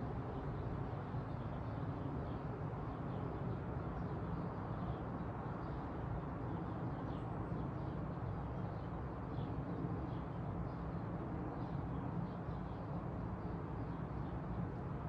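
Outdoor garden ambience: a steady low rumble with faint, scattered bird chirps.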